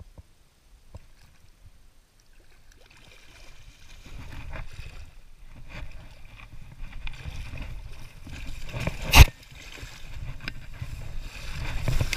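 Water splashing and sloshing as a hooked silver (coho) salmon thrashes at the grassy bank, starting about three seconds in and building. There is one sudden loud hit about three-quarters of the way through.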